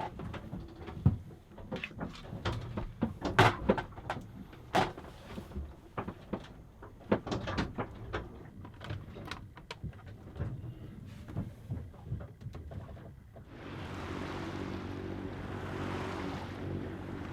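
Irregular clicks and knocks of parts and tools being handled around the sailboat's engine. About fourteen seconds in, this gives way to the boat's inboard engine running steadily under way, with wind and water noise.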